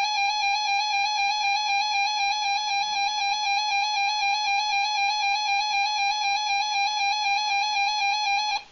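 Emergency Alert System attention signal: a steady, loud electronic alert tone that holds one pitch and cuts off abruptly near the end.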